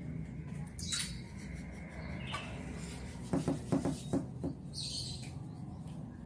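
Handling noise: brief rustling hisses and a quick run of about five light knocks about three seconds in, the loudest part, as of things being moved and set down.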